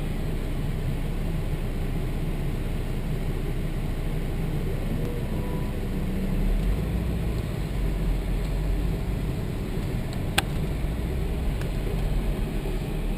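Volvo S60R's turbocharged five-cylinder engine and tyres on dirt heard from inside the cabin, a steady drone while driving slowly round a parade lap. A single sharp click about ten seconds in.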